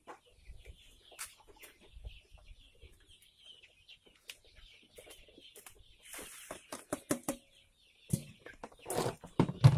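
Native village chickens clucking, with knocks and rustling from plastic bins and a scoop being handled; the louder knocking and rustling near the end is feed being scooped out of a bin.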